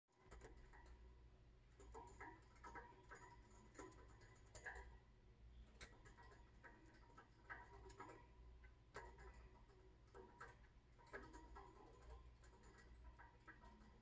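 Faint, irregular small clicks and taps from a budgerigar moving about the bottom of its wire cage, over a steady low hum.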